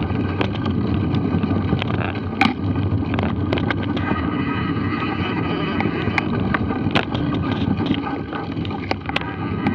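Mountain bike riding a bumpy dirt singletrack: steady wind rumble on the microphone, with frequent clicks and rattles from the bike jolting over the trail. The sharpest knocks come about two and a half seconds in and again near seven seconds.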